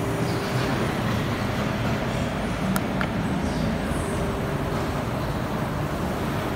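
Aftermarket electric tailgate-lift struts on a 2019 Infiniti Q60 lowering the trunk lid, a faint motor whir under a steady noisy hum, with two light clicks about three seconds in.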